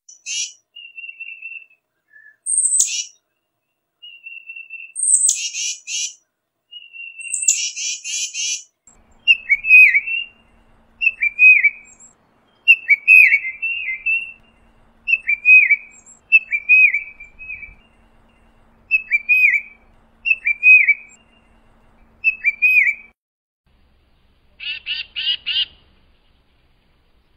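Tufted titmouse calling. It starts with high thin notes mixed with harsh, buzzy calls, then gives a string of about ten clear, down-slurred whistled notes, roughly one every second and a half, and ends with one short harsh buzzy call.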